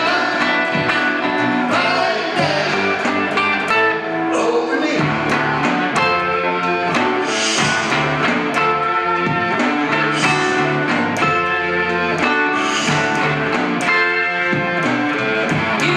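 A small rock band playing a song live: two electric guitars and a bass guitar over a steady beat.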